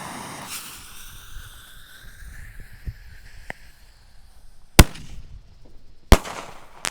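Small 1-inch aerial firework shell with a crackling effect going off. A hiss fades over the first two seconds, a couple of faint pops follow, and three sharp loud bangs come in the last two seconds.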